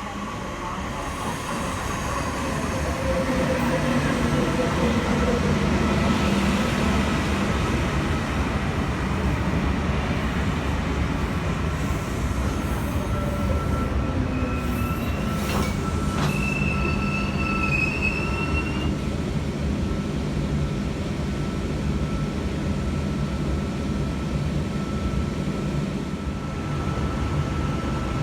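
V set electric double-deck intercity train pulling into the platform: a steady heavy rumble of the cars rolling in, growing louder over the first few seconds. From about halfway, thin squeals from the wheels and brakes ring over it, with a higher squeal for a few seconds, and a steady low hum underneath as the train slows.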